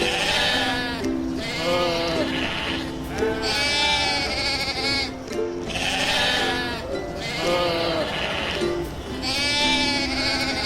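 Repeated quavering bleats, about six in a row, each a second or so long, over background ukulele music.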